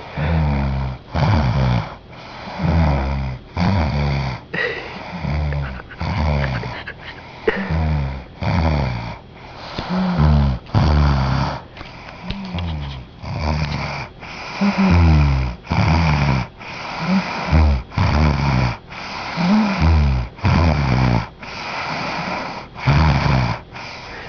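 A woman snoring loudly in her sleep: a steady run of short rasping snores, about one a second, many sliding down in pitch.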